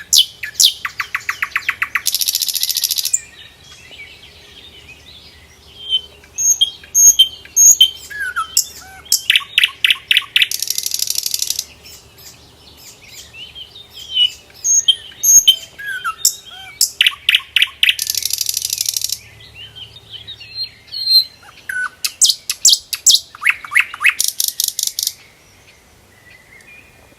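Small songbird singing: repeated phrases of quick chirps and fast trills, each ending in a buzzy high note, four phrases with short pauses between them.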